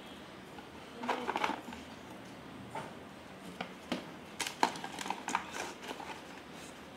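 Small cardboard box being handled and emptied by hand: scattered scrapes, taps and knocks of cardboard and the parts inside. A short cluster comes about a second in, and a busier run of sharp clicks from about three and a half seconds.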